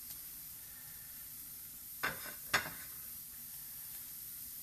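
Butter sizzling steadily in a frying pan under a thin galette, with two short taps about two seconds in, half a second apart.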